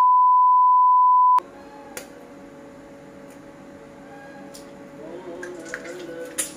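Steady 1 kHz reference test tone of the kind played over colour bars, loud and unbroken, cutting off abruptly about a second and a half in. Soft background music follows, with a few sharp taps of an egg being cracked on the wok's rim.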